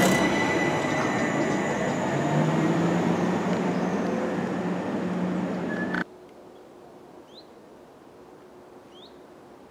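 Greater Anglia electric multiple unit moving off down the line, its steady high traction whine, a slowly rising low motor tone and rail noise fading as it draws away. About six seconds in the sound cuts off suddenly to quiet outdoor background with two short bird chirps.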